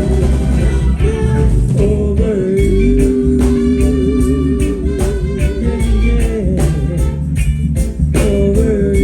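Live reggae band playing: heavy bass and a steady beat with guitar, under a held, wavering lead melody.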